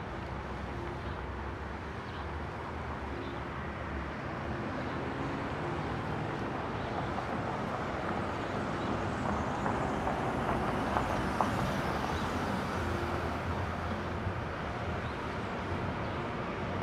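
Road traffic at an intersection: cars driving past, a steady rumble that swells a little in the middle.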